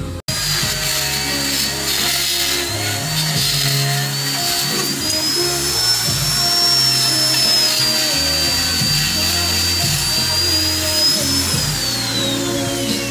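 High-speed electric die grinder with a carving bit cutting into wood, its whine wavering a little in pitch under load, then falling steadily as the tool winds down near the end. Background music plays underneath.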